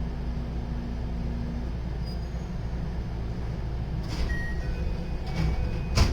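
JR West 223 series 0-subseries electric train rumbling along. A steady hum from the drive stops about a second and a half in, and a few short sharp noisy bursts follow near the end, the last one the loudest.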